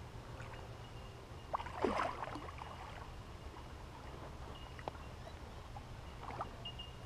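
A hooked carp splashing and thrashing at the surface in shallow water as it is drawn in to the bank, with one larger splash about two seconds in, over a low steady rumble.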